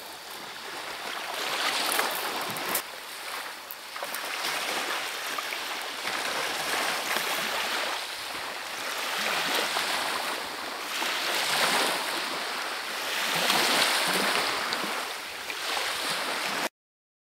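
Small waves washing onto a shelly, pebbly beach, a hiss that swells and fades every few seconds. The sound cuts off suddenly near the end.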